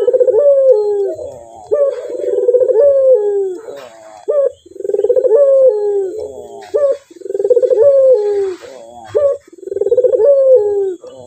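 Male ringneck (Barbary) dove cooing over and over: about five rolling coos, each a second or so long and a couple of seconds apart, with fainter, higher sliding calls in between.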